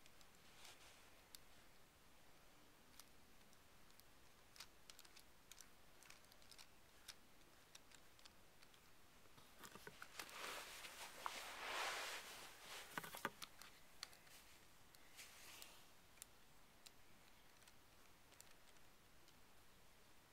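Faint clicks and light rattling of plastic Lego Technic parts as a hand-held steering model is handled and its steering turned, with a louder stretch of rustling and clicking about halfway through, lasting about three seconds.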